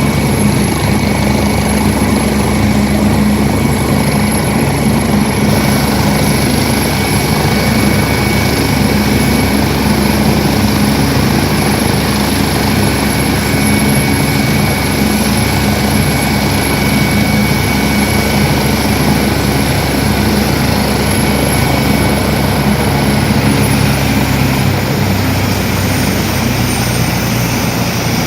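Medical helicopter running close by: a steady turbine and rotor sound with a thin high whine, which falls in pitch near the end.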